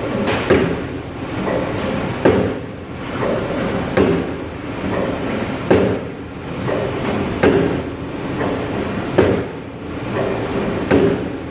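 Cheese-boiling machine running with a steady mechanical rumble and a sharp knock about every 1.7 seconds, one knock per working cycle.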